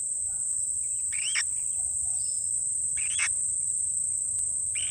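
A steady, unbroken high-pitched insect trill, with three short rising bird calls spread across it.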